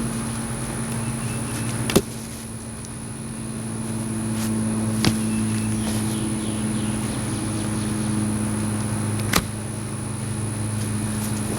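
An engine running steadily at a low, even speed, with three sharp knocks at about two, five and nine seconds in.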